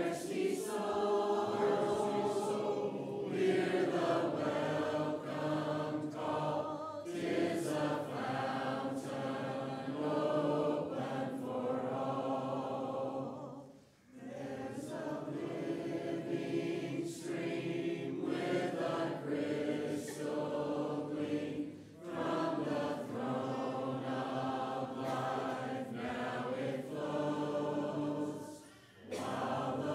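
A congregation singing a hymn together a cappella, many voices in parts, with brief pauses between phrases.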